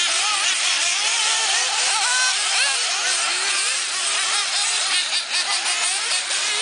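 Several 1/8-scale nitro RC buggy engines racing, whining at high revs and rising and falling in pitch over one another as the cars accelerate and brake around the track, with a choppy stretch about five seconds in.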